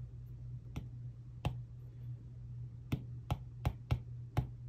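Apple Pencil tip tapping on an iPad's glass screen: about seven sharp clicks, a few apart at first, then coming quicker in the second half. A low steady hum runs underneath.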